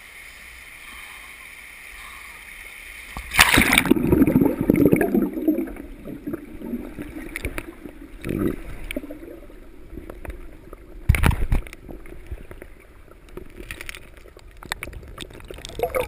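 River water heard first at the surface, then a splash about three seconds in as the camera goes under, followed by muffled underwater gurgling and bubbling. A couple of sharp knocks come about eleven seconds in.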